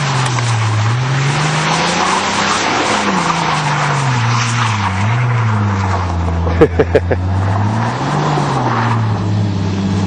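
A car's engine revving up and down again and again as its wheels spin and slide through dirt and mud, with a dense churning noise under it. A quick cluster of sharp knocks comes about six and a half seconds in.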